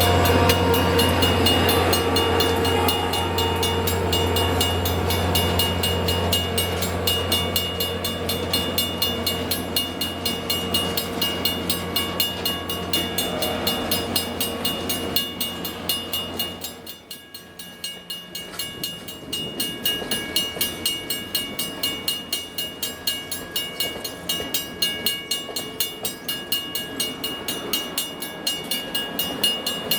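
A train passing close by on the Grand Canyon Railway: first a steady low engine hum from the locomotive, then, after a brief dip about halfway, the cars' wheels clacking over the rail joints at about two clacks a second.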